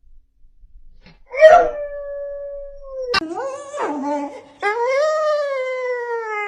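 A dog howling: after a quiet start, long drawn-out howls begin about a second and a half in, the pitch sliding up and then slowly down, with a brief break in the middle.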